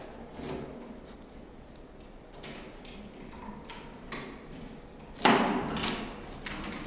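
Footsteps on a hard floor and a hand-held camera being handled, short scattered knocks and clicks, with two louder sharp knocks a little after five seconds in.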